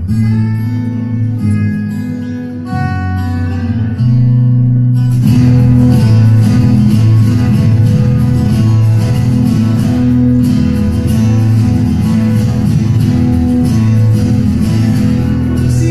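Background music led by guitar: sparse picked notes at first, then a fuller, louder strummed accompaniment from about four seconds in.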